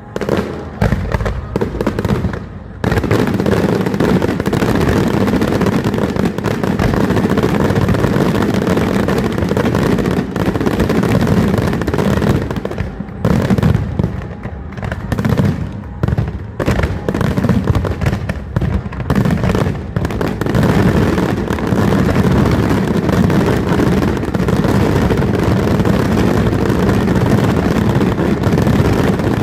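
Fireworks display: a dense barrage of bangs and crackle, scattered at first, then nonstop from about three seconds in.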